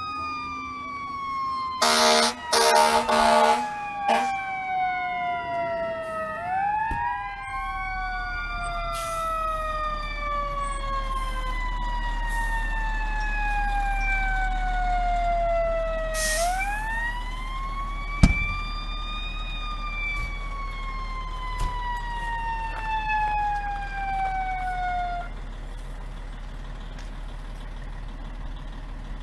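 Fire engine siren wailing. Each time it climbs quickly, then slides slowly down, about three cycles before it stops near the end. About two seconds in, a couple of short, loud air horn blasts sound over it, with the truck's engine rumbling low underneath.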